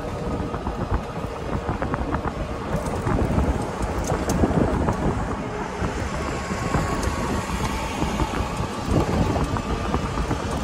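Golf cart driving along a paved path, its running noise mixed with wind buffeting the microphone; a faint steady whine joins in from about six seconds in.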